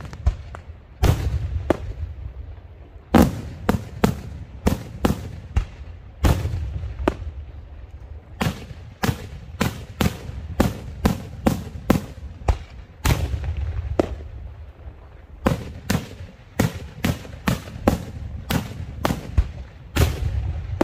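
Daytime aerial fireworks shells bursting in a rapid string of sharp bangs, about two a second, with heavier booms every few seconds whose deep rumble lingers.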